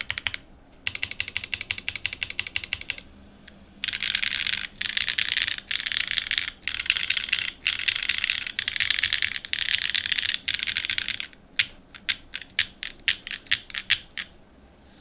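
Geonworks F1-8X V2 mechanical keyboard with an aluminium plate, lubed OG BCP switches and GMK Amethyst keycaps being typed on: bursts of fast typing with short pauses, then about a dozen separate, slower keystrokes near the end.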